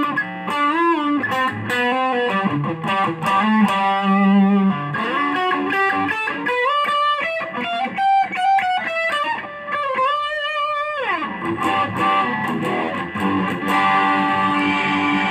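Mexican-made Fender electric guitar playing a lead line with string bends and vibrato. There is a slide down about three-quarters of the way through, and it finishes on sustained ringing notes.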